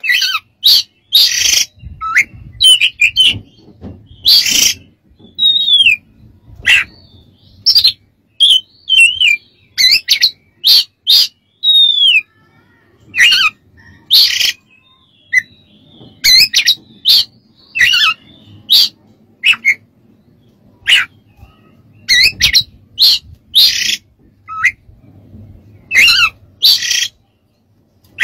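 Male Oriental magpie-robin singing in short, loud phrases: clear whistled notes, a few falling slurred whistles, and harsh rasping notes mixed in.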